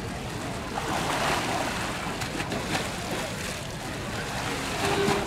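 Steady rushing outdoor background noise with no single clear source, a little louder about a second in and again near the end.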